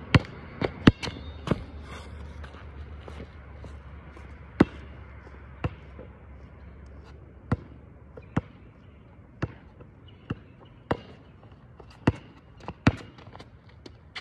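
A basketball bouncing on an outdoor hard court, making sharp single thuds: several close together in the first second and a half, then scattered bounces about once a second.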